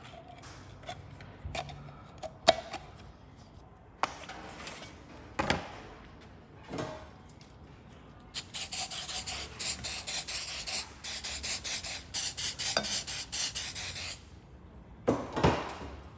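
Hand scraper working on the aluminium gasket face of a 1.8 F18D4 cylinder head, scraping off old cork gasket and silicone residue. There are light scrapes and clicks at first with one sharp tap, then a steady run of quick scratchy strokes through the middle.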